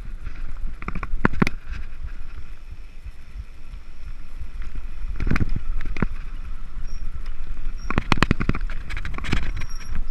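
Mountain bike descending a rough dirt singletrack: steady wind rumble on the camera microphone over tyre noise, broken by sharp knocks and rattles from the bike hitting bumps, which come thickest near the end.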